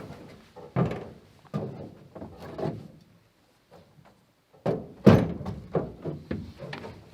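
A series of irregular thunks and knocks. A few come in the first three seconds and, after a short pause, a quicker run follows, the loudest about five seconds in.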